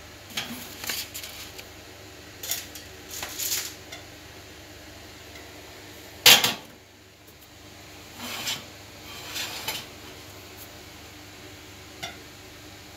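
Metal baking pans being slid onto and set down on a wire oven rack: a series of scrapes and clatters, with one loud clank about six seconds in.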